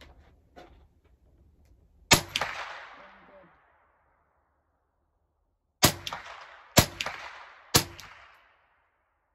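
Four shots from a scoped rifle: one about two seconds in, then three more about a second apart near the end, each echoing and fading away over about a second.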